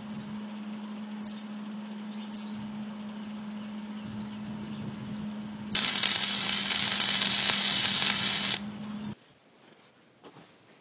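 Electric arc welding: a loud, even crackling hiss for about three seconds as a bead is run, over a steady hum that cuts off about nine seconds in.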